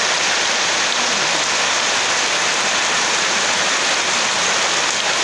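Steady rain falling: a dense, even hiss of raindrops that keeps on without a pause.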